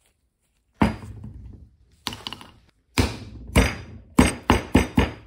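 Marble pestle pounding a dry oak gall in a marble mortar: about eight sharp knocks, about a second apart at first and coming faster near the end.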